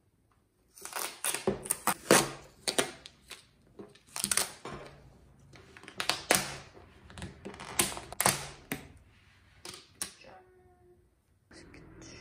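A series of sharp clicks and knocks at irregular intervals, about twenty in ten seconds, like objects being handled or tapped, with a brief faint tone near the end.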